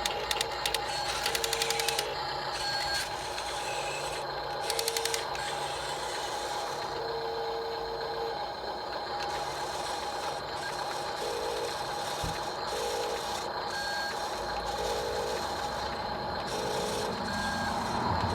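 Radio-controlled 1:24 Cat 950M wheel loader model running: a steady electric whine, short beeps now and then, and bursts of rapid clicking in the first few seconds.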